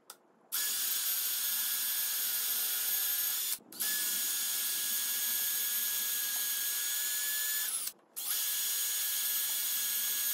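Electric drill in a portable drill guide running at a steady speed in three bursts of about three to four seconds each, with short pauses between them. It is drilling bolt holes for a linear rail.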